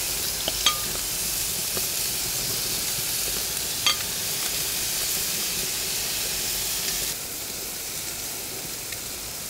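Marinated chicken wings sizzling on the hot grates of a gas grill as leftover lemon-pepper marinade is spooned over them, a steady hiss with a couple of faint clicks. The sizzle drops a little about seven seconds in.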